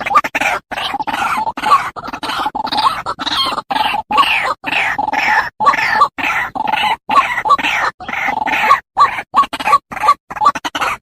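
White-breasted waterhen (dahuk) calling: a fast, unbroken series of short, loud, repeated calls.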